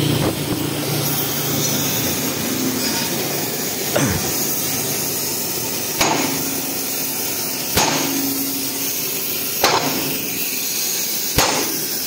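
Hammer blows on the steel parts of a tank road wheel: five hard strikes, about two seconds apart, beginning about four seconds in, over a steady background noise.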